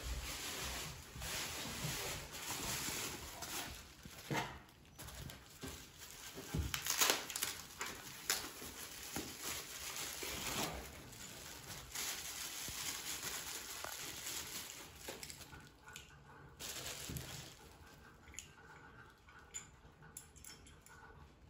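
Packaging being opened and handled as a faucet is unpacked: rustling and crinkling, with scattered knocks and clicks that die down near the end.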